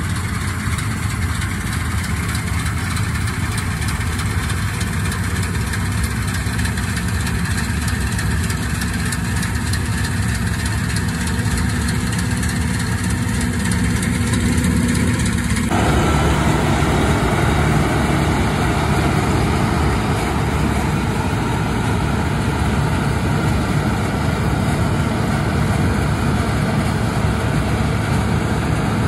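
New Holland TC5.30 combine harvester running steadily under load as it cuts and threshes rice, its engine and threshing machinery making a continuous hum. About halfway through the sound changes abruptly to a brighter, hissier mix, which then holds steady.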